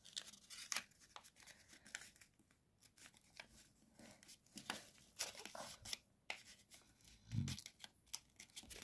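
Faint rustling and crinkling of a sheet of squared notebook paper being folded and rolled by hand, in scattered short crackles, with a soft low thump about seven seconds in.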